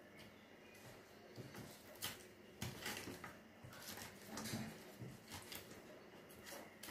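Filleting knife working through a perch fillet on a plastic cutting board: quiet, irregular scrapes and taps of the blade against flesh, skin and board.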